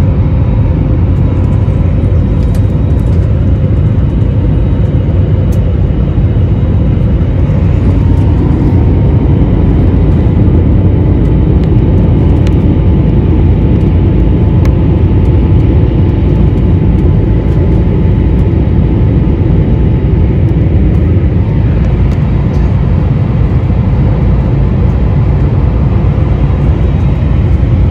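Steady, loud cabin noise of a jet airliner climbing after takeoff: the turbofan engines and rushing air make a deep, even rumble with a faint steady whine above it.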